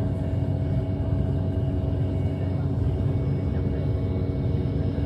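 Airliner cabin noise in flight: the engines' steady low drone with a few constant hum tones over it, unchanging throughout.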